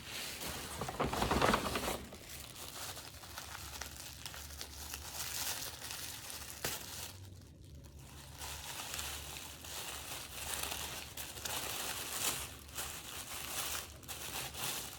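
Gift wrapping crinkling and rustling as it is handled and unwrapped by hand, louder for the first couple of seconds, then a steady softer crinkling.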